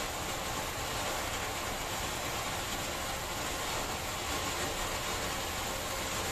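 Small cone fountain firework (anar) from Sunrise Fireworks' Wonder Series burning, its jet of sparks giving off a steady hiss.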